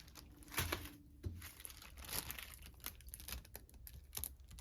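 Crinkling plastic film and scattered light clicks from handling a plastic frozen-meal tray.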